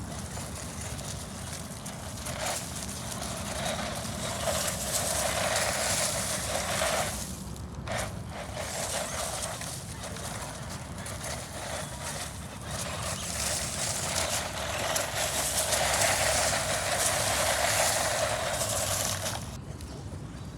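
A small 1/16-scale electric RC car driving over rough ground, its tyre and drivetrain noise swelling twice as it comes close and drops away in between.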